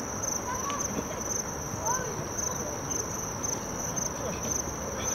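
Crickets chirping in an even, high-pitched rhythm, about two to three chirps a second, with faint distant voices underneath.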